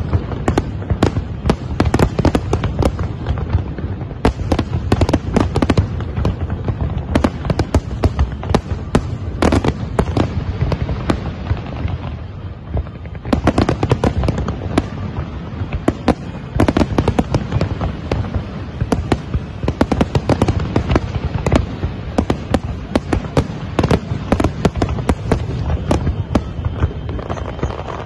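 Aerial fireworks display: a dense barrage of shell bursts in quick succession, easing briefly about twelve seconds in before building again.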